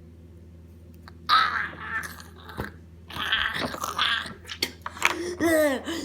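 A person biting down hard on something, with a sudden loud crunch about a second in, followed by irregular crunching and chewing; near the end, vocal noises start.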